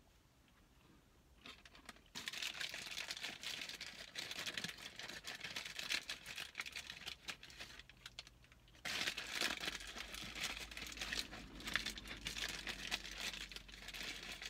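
Paper fast-food packaging being handled, rustling and crinkling in two long stretches that each start abruptly, the first about two seconds in and the second just before nine seconds.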